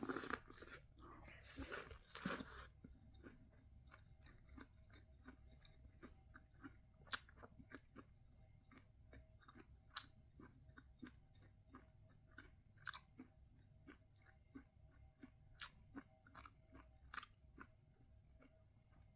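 Quiet chewing and biting of sweet corn, with small crunches and mouth clicks. There is a louder stretch of biting in the first two seconds or so.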